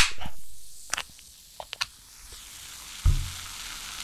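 A freshly opened can of carbonated drink: a short hiss of escaping gas right after the tab snaps, a few small clicks, a low thump about three seconds in, and the steady fizz of bubbles swelling in as the can comes close.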